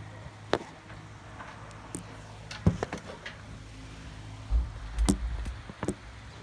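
Handling noise from a hand-held hidden phone camera: scattered clicks and knocks, with a low rumble about four and a half to five and a half seconds in, over a steady low hum.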